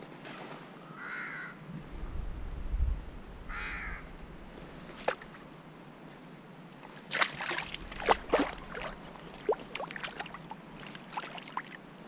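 Water splashing and a landing net being handled as a salmon is unhooked in the shallows, with a run of sharp splashes and clicks about seven to nine seconds in. A bird calls twice in the first few seconds.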